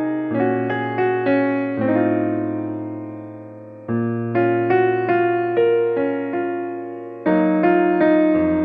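Background piano music: a calm melody of evenly struck notes over held bass notes.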